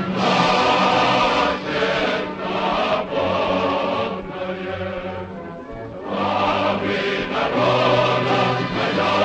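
Choral music: a choir singing in long sustained phrases, dropping softer for a couple of seconds mid-way before swelling again.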